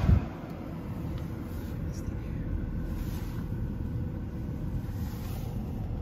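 Mark VII soft-touch car wash's spinning cloth brushes working along the car, heard muffled inside the cabin as a steady low rumble. A loud rushing noise cuts off just as it begins.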